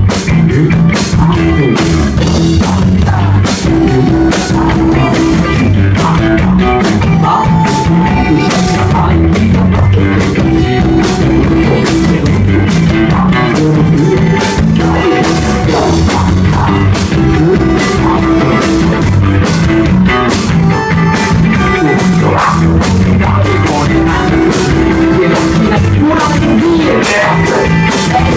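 Live rock band playing a full-band song: drum kit keeping a steady beat under sustained bass and electric guitar.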